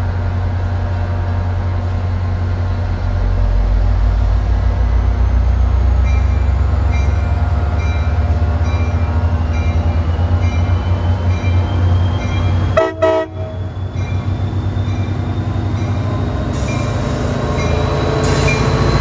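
NJ Transit diesel locomotive running under power as it pulls its train past close by. Its five-chime K5LA horn sounds over the engine drone, and a bell dings steadily through the middle of the pass.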